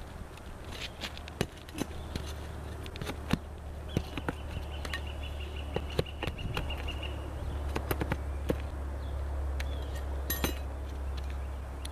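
A hand tool prying and scraping under asphalt shingles, loosening them from their nails, with scattered sharp clicks and knocks. A steady low drone runs underneath, and a thin pulsing tone sounds for a few seconds in the middle.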